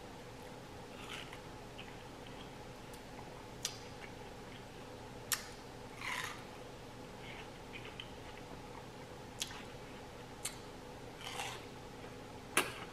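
Close-miked eating sounds: scattered sharp wet mouth clicks and lip smacks, with a few short chewing bursts, over a faint steady hum.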